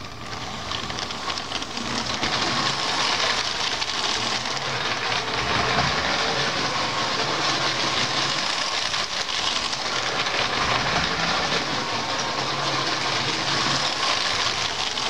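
Motorised Lego toy train running on plastic track: a steady whirring motor and rattling wheels, getting louder over the first two seconds.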